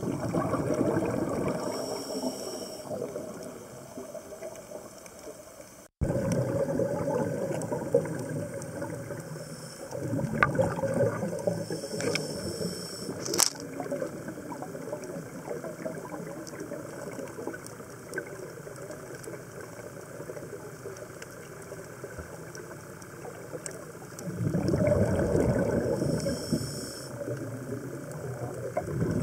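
Scuba diver's regulator breathing heard underwater through the camera housing: bursts of bubbling exhaust a few seconds long, near the start, again about 6 to 12 seconds in, and around 25 seconds in, with a fainter hiss between them.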